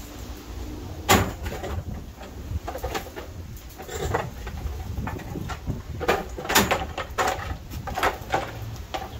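White folding chairs knocking and clattering against each other as they are stacked and lifted: one sharp knock about a second in, then a run of clacks in the second half.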